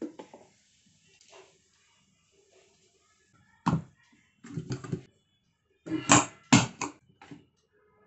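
Two stainless-steel electric kettles being handled on a wooden desk, with a run of sharp plastic-and-metal knocks and clicks as their hinged lids are pressed open. One knock comes a little before halfway, then two quick clusters follow, the second the loudest.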